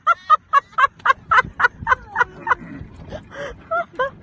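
A man laughing hard: a quick run of short ha-ha-ha bursts, about four or five a second, for two and a half seconds, then a few more laughs near the end.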